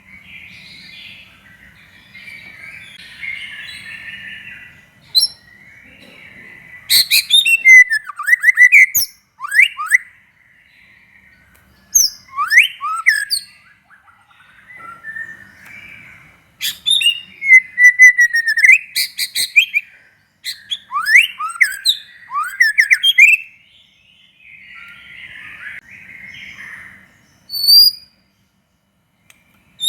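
White-rumped shama (murai batu) singing in full song: loud phrases of rapid rattling notes and fast sweeping whistles, broken by stretches of quieter soft chattering, with a short high whistled phrase near the end.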